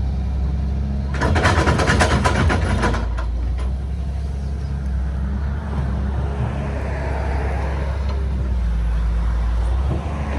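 Heavy diesel machinery engine running steadily with a low drone. About a second in there is a loud rattling clatter lasting about two seconds, followed by a few fainter knocks.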